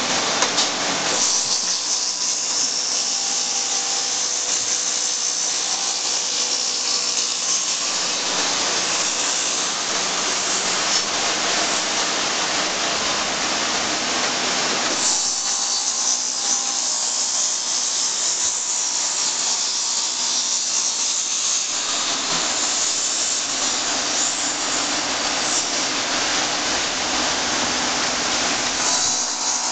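1998 Intorex RM-115 automatic six-station woodturning copy lathe running, its cutters shaving wooden blanks. The noise of motors and cutting is steady and loud, and its character changes about every seven seconds.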